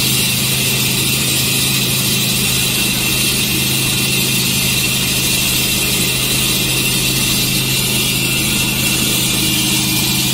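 Concrete floor saw driven by a Honda GX390 single-cylinder four-stroke engine running at a steady speed, its 400 mm blade cutting wet concrete with a continuous grinding hiss over the engine note.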